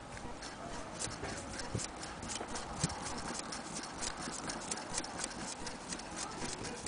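Willcox & Gibbs chain-stitch sewing machine turned by its hand wheel, stitching through cloth: a steady run of light mechanical clicks, several a second, from the needle and stitch mechanism.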